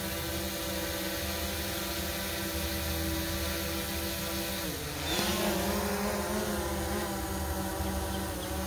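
DJI quadcopter drone's propellers whining steadily, a stack of tones that dips in pitch and climbs back about five seconds in as the motors change speed.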